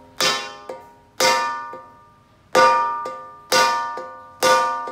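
A hammer driving the wooden handle onto a wok's metal handle socket: five blows about a second apart. The wok's metal rings after each blow and fades before the next.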